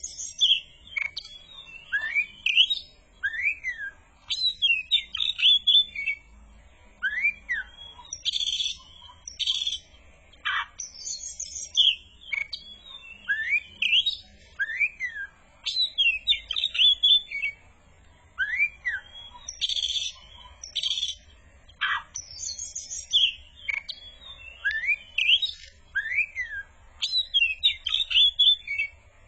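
Oriental magpie-robin (kacer) singing continuously. Its varied song mixes clear whistled upslurs and downslurs with sharp high chirps, in short phrases repeated every second or two.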